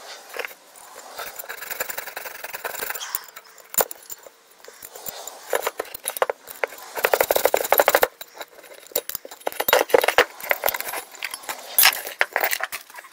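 Rapid metallic clicking and rattling from a lawn tractor's V-belt pulley on its shaft being turned and handled, as shredded drive-belt remnants are picked out of its groove; the clatter comes and goes, loudest in the middle.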